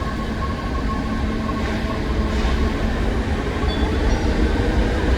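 Electric train running along a platform track in a station: a heavy, steady rumble with a steady high tone riding over it, and a few faint high tones about four seconds in.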